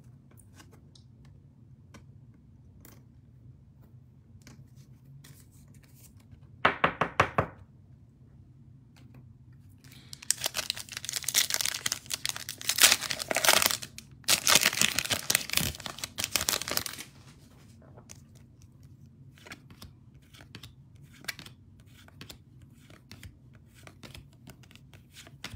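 A plastic wrapper on a Panini Contenders football card pack is torn open and crinkled, loudest for several seconds starting about ten seconds in. A short rapid run of clicks comes before it, and soft handling ticks follow as the cards are taken out.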